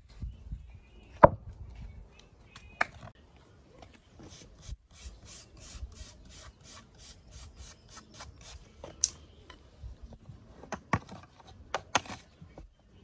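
A thick wooden log slice knocked twice against concrete as it is set down. Then a wire brush scrubs across its sawn face in quick, even strokes, about four a second. Near the end, a hammer strikes a chisel several times against the bark edge.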